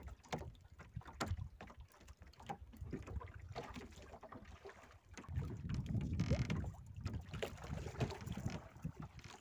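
Wind rumbling on the microphone aboard a small fishing boat at sea, loudest in a gust about five to seven seconds in, with scattered knocks and clicks as a hand line is worked over the side.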